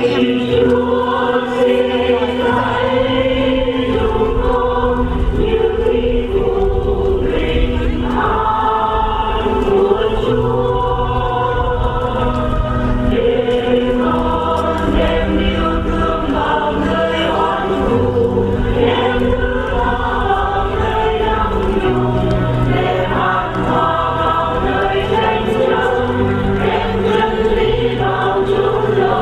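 A choir singing a slow song to keyboard accompaniment, long held notes over a bass line that changes every couple of seconds.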